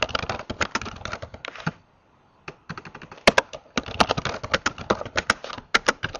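Fast typing on a computer keyboard: quick runs of key clicks, with a pause of about half a second about two seconds in.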